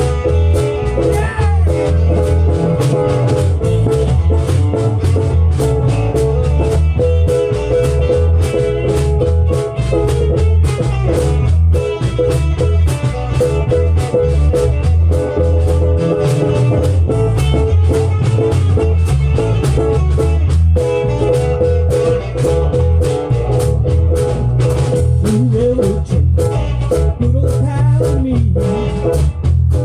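Live band playing a song, with guitar over a steady beat and a strong bass line.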